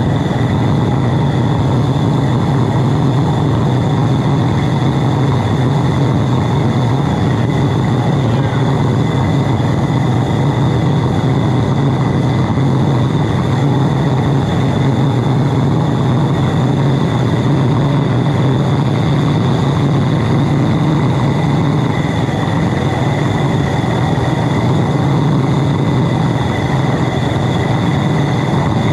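High-velocity diesel burner with a compressed-air nozzle firing steadily into a small foundry: a continuous loud roar of the flame, with a thin steady whistle above it.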